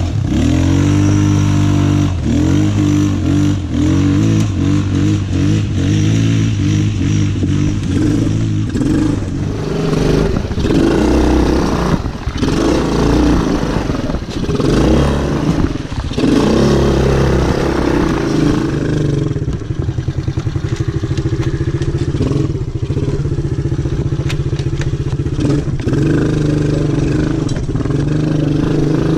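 ATV engine running under load on a steep, rough dirt trail, its pitch rising and falling with the throttle. Clattering knocks from the machine jolting over the bumpy ground come mostly in the middle, and the engine runs more steadily near the end.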